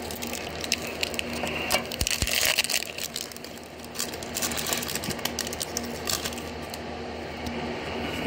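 Foil wrapper of a trading-card booster pack being torn open and crinkled by hand: a dense run of crackles, busiest about one to three seconds in.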